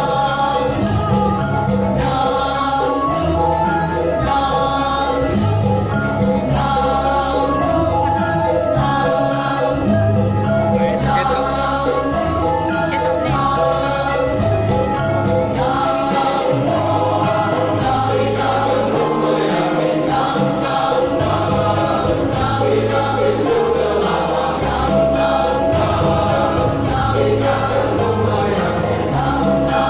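Church choir singing a hymn over instrumental accompaniment with a steady bass line, with jingling percussion keeping the beat.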